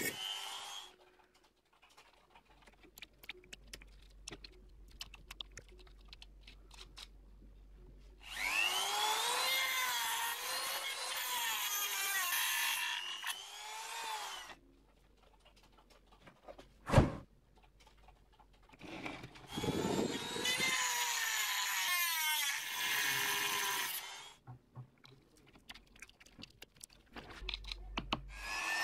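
Handheld rotary tool with a thin cutoff disc cutting into a wet stone, its whine dipping and rising in pitch as the disc bites. It runs in two long spells separated by quieter stretches of small clicks, with one sharp knock about halfway.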